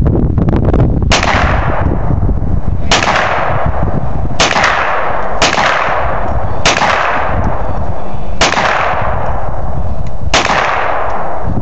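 Handgun firing seven single shots at an uneven pace, one every one to two seconds, each shot cracking and then echoing away. Wind buffets the microphone underneath as a steady low rumble.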